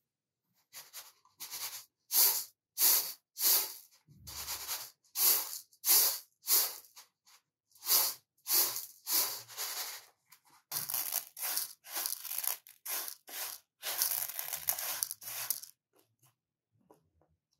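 Uncooked rice rattling and hissing on a round metal tray as it is tossed in repeated strokes, about one and a half to two a second, to winnow out debris. About eleven seconds in the strokes run together into a denser stretch of shaking, and near the end there are only faint rustles.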